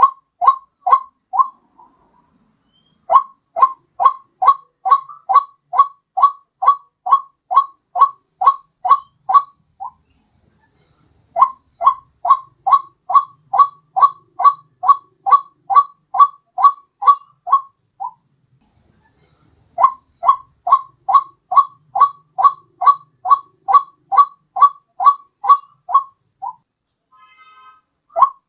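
White-breasted waterhen (ruak-ruak) calls played as a bird-trapping lure: a rapid series of short, evenly repeated notes, about two and a half a second. They come in bouts of six or seven seconds with brief pauses between.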